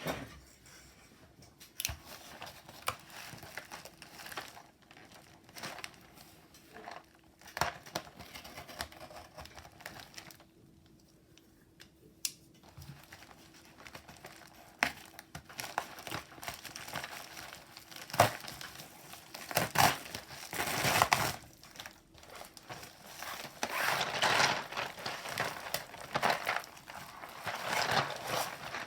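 Packaging of a keycap set crinkling and tearing as it is handled and opened. Irregular rustling comes with sharp clicks, and the loudest stretches are about two-thirds of the way through.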